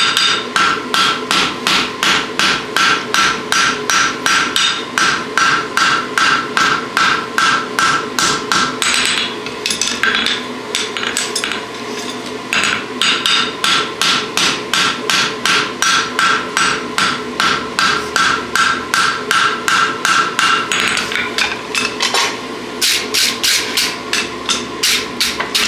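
Ball-peen hand hammer striking a red-hot draft horseshoe on the anvil in fast, even blows of about four a second, each with a short metallic ring. The hammering pauses twice briefly, about nine seconds in and again near twenty-one seconds, then resumes.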